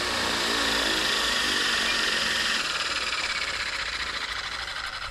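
Blade Eclipse 360 electric RC helicopter's motor and main rotor winding down after landing: a whine that slowly falls in pitch and fades.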